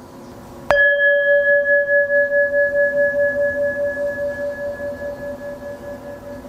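A meditation bell struck once, about a second in, then ringing on at a steady pitch with a fast pulsing wobble as it slowly fades.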